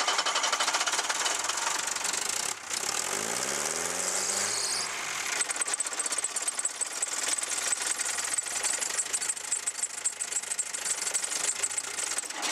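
Ford Transit diesel engine running after a cold start, with a loud, rapid diesel clatter through a short upright exhaust stack. A brief rise and fall in engine pitch comes about three seconds in.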